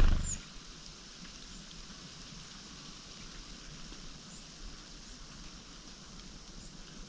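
A single dull thump right at the start, then a steady faint hiss with scattered light ticks and a few tiny high chirps.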